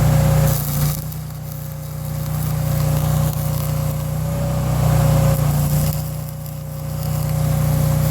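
Stick welding: the arc hisses and crackles over the steady hum of the welding machine. The sound swells and fades twice as the arc is struck and run.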